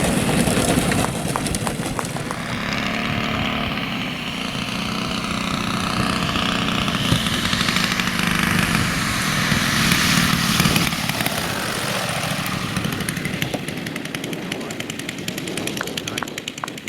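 RC model airplane engine running, its pitch falling and rising as the throttle changes, then settling into a fast, even ticking toward the end.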